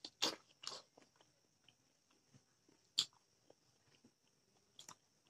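Mouth sounds of a person eating rice by hand: short, sharp smacks and chewing clicks, three in the first second, one about three seconds in and one near five seconds, over a faint steady hiss.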